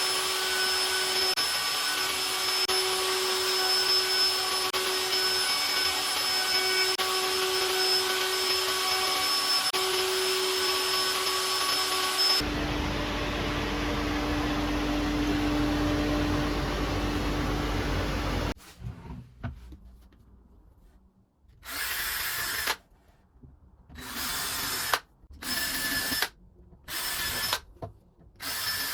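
Power tools running in turn: one tool runs steadily with a high whine for about twelve seconds, a lower-pitched tool takes over for about six seconds, and then come a string of short bursts, each a second or so long.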